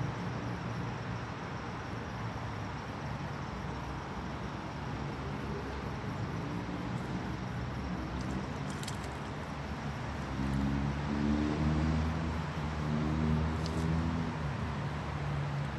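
Steady outdoor background hiss with a low motor drone that grows louder about halfway through.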